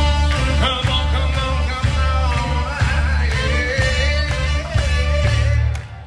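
Rock-style music with a heavy, pulsing bass line and a wavering melodic lead, breaking off about half a second before the end.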